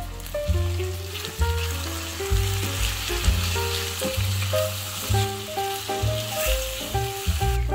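Sliced potatoes and onions sizzling in hot oil in a frying pan while a spatula stirs them, with background music playing over it. The sizzle stops just before the end.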